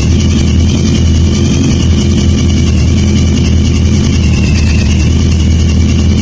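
Kawasaki GPZ1000RX inline-four motorcycle engine idling steadily, with no revving.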